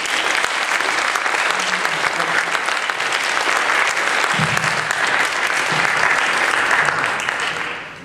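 Audience applauding, a dense steady clapping that dies away near the end.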